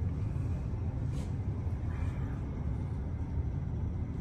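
Steady low rumble of a large mall atrium's background ambience, with a few faint distant sounds over it.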